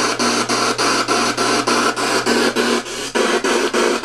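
Spirit box sweeping through radio stations: a rapid run of chopped static, about four to five bursts a second, with a brief dip about three seconds in.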